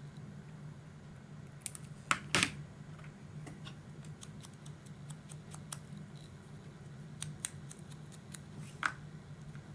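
Scissors snipping small pieces of paper, with a few sharp clicks about two seconds in, followed by scattered light ticks of paper being handled on a cutting mat. A low steady hum runs underneath.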